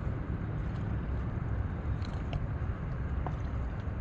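Steady low-pitched outdoor rumble at the shoreline, with a few faint clicks about two and three seconds in.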